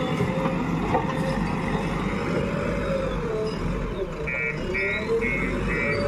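JCB 3DX backhoe loader's diesel engine running under load as it works soil with its front bucket. A little past four seconds in, its reverse alarm starts beeping, about two beeps a second, as the machine backs up.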